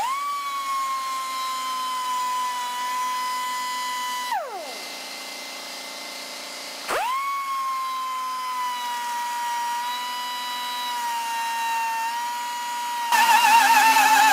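Handheld die grinder spun up to a steady high whine, spun down about four seconds in, then started again and held at speed. Music with singing comes in near the end.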